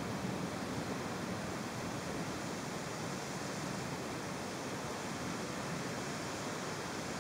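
Heavy rain pouring during a thunderstorm, an even, steady rushing hiss.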